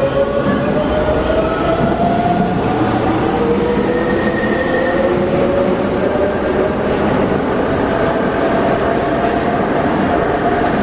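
Tobu 100 series Spacia electric train pulling out of the station and gathering speed. Its traction motors whine, rising slowly in pitch, over the steady rumble of the wheels on the rails.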